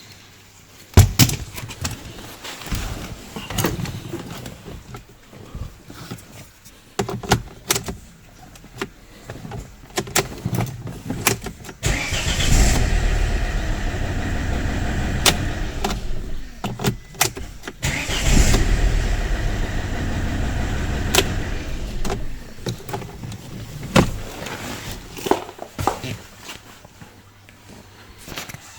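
Volvo car engine being started twice. First comes a series of clicks and knocks. Then the engine cranks and runs for about six seconds and stops, and is cranked and runs again for a few seconds before more clicks. With the steering column lock programmed off, the car starts.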